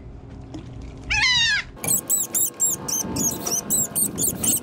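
A gull hooked on a fishing line, calling in distress beside the boat. One long harsh call with falling pitch about a second in, then a quick run of short, high cries, about four a second.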